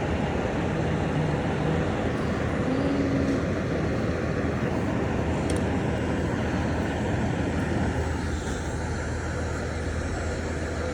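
Steady outdoor rumble of running vehicle engines and street noise, with a constant low hum underneath.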